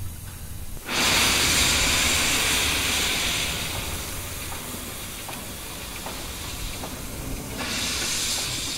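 Steam locomotive letting off steam: a loud hiss starts suddenly about a second in and slowly fades, and a second burst of hiss comes near the end.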